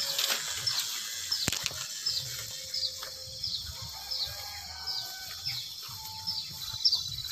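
Footsteps on a wet, muddy footpath through garden undergrowth, a soft thud every step or so. Over them a short, high, falling chirp repeats about three times every two seconds, with one sharp click about a second and a half in and a steady high insect buzz starting near the end.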